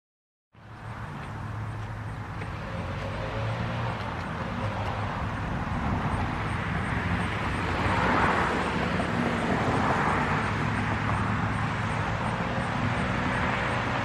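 Road traffic going by outdoors: a steady low rumble with a vehicle passing that swells about eight seconds in. It starts after half a second of silence.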